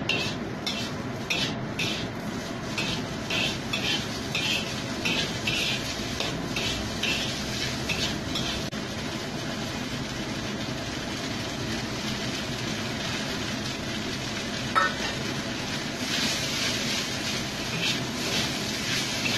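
Metal spatula scraping and tossing rice vermicelli around a wok, about two strokes a second, over a steady sizzle of frying. The scraping eases off midway and picks up again near the end, with one sharp clink shortly before.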